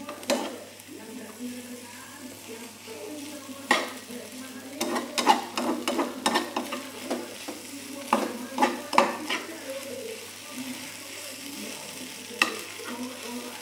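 Noodles sizzling in a frying pan while being stirred, with a utensil knocking and scraping against the pan. The knocks come in a busy run through the middle and one last knock near the end.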